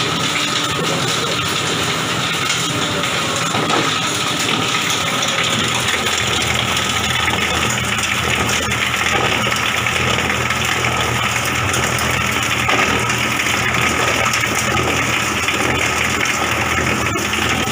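Coconut shell and wood bark grinder running steadily while it grinds, giving out powder: a loud, constant mechanical noise with a low hum and a thin steady whine.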